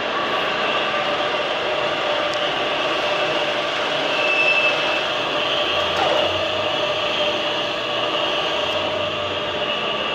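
CNC keyseating machine running as it slots the splined bore of a steel hub: a steady mechanical hum with several held whining tones and a hiss of machine noise, with a brief higher whine about four seconds in.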